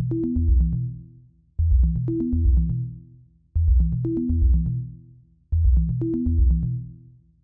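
Electronic background music: a short loop of deep bass notes and drum-machine clicks, repeating about every two seconds.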